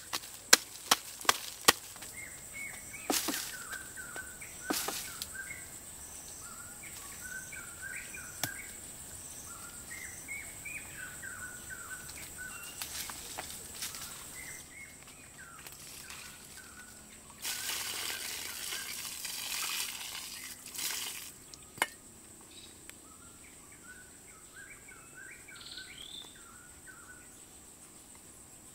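A quick run of chopping strokes that stops about two seconds in, then a few scattered single knocks and a few seconds of rustling or scraping in the middle. Short bird chirps keep going throughout, over a steady high-pitched whine.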